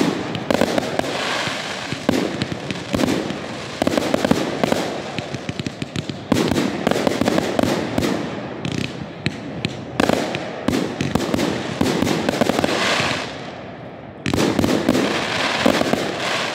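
A Proud Mary 134-shot 25 mm firework cake firing a rapid, continuous run of shots and aerial bursts. It eases briefly about fourteen seconds in, then a last loud cluster of bursts follows.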